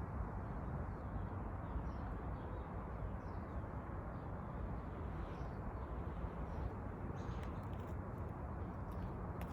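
Chipmunk giving repeated high 'chip' calls, each a short falling note, coming faintly about once or twice a second over a steady low background rumble.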